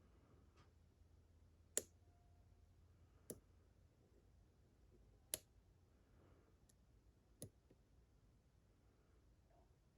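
Lock pick working the pins inside a Vachette HDI lock cylinder: faint, with four sharp clicks a second or two apart over quiet room noise.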